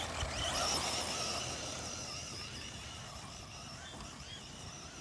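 Electric motor of an RC car whining, its pitch rising and falling with the throttle, fading slowly as the car moves away.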